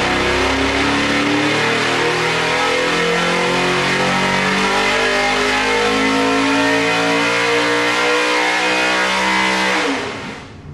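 427 cubic-inch small-block Chevrolet stroker V8, carbureted and without nitrous, making a full-throttle dyno pull: the engine note climbs steadily from about 3,700 to about 6,700 rpm. About ten seconds in, the throttle closes and the sound falls away.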